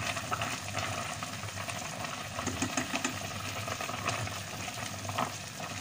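Broth bubbling at a boil in a stainless steel pot while rice noodles are stirred through it with tongs, with a few light clicks and sloshes from the stirring.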